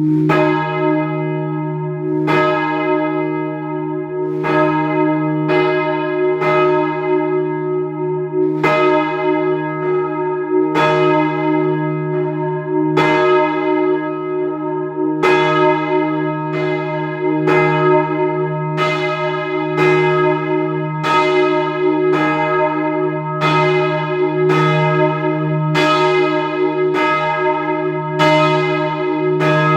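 Heavy church bells, the back bells of a twelve-bell ring with a tenor of about 32 cwt, being rung up from rest. The strikes land unevenly at about one a second, each ringing on over a continuous deep hum.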